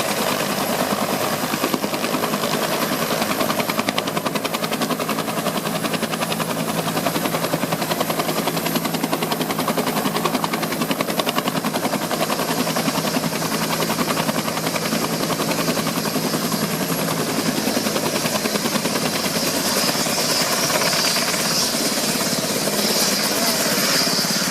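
Helicopter running close by, its rotor blades beating in a fast, steady rhythm, with a high hiss building near the end.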